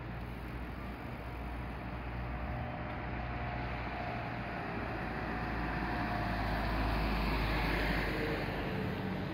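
City street traffic: engines running and tyres on the road, a steady low hum under a wash of road noise that grows louder toward the end.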